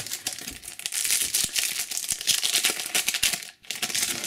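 Trading-card booster pack being torn open and its shiny wrapper crinkled in the hands: a dense crackle for about three and a half seconds, a brief break, then more crinkling near the end.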